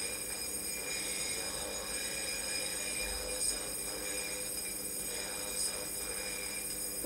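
Ionophone, a corona-discharge plasma speaker with a brass horn, giving a steady hiss with several fixed high whining tones, and two short sharp crackles partway through.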